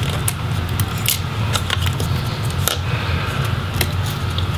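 Scattered small clicks and taps of plastic connector latches and ribbon cables being worked loose from a laptop motherboard by hand, over a steady low hum.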